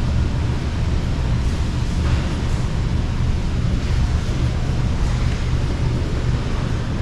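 Steady low rumble with an even hiss over it, the constant background noise of the terminal hall, with no distinct events.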